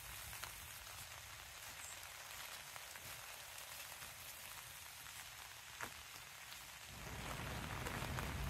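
Steady light rain falling, with scattered raindrop taps and one sharper tap just before six seconds in. Near the end a low rumble swells up and the sound grows louder.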